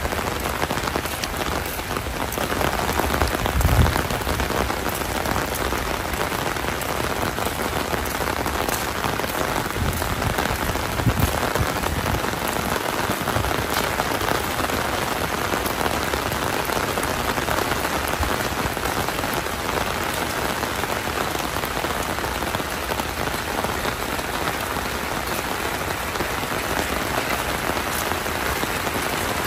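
Heavy rain falling steadily on surfaces, a dense even hiss. Two brief dull low bumps stand out, one about four seconds in and another about eleven seconds in.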